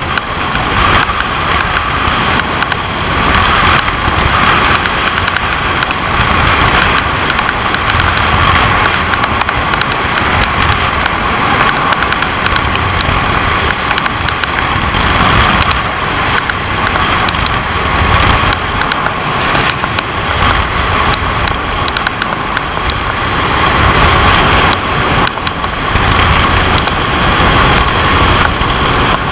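Zip line trolley running fast along its steel cable, a steady whirring whine held at one pitch, with wind buffeting the camera's microphone in an uneven low rumble.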